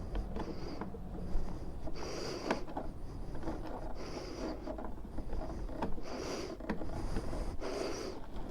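Hands working a motorcycle speedometer cable into place behind the fairing: bursts of scratchy rustling and a few light clicks, over low wind rumble on the microphone.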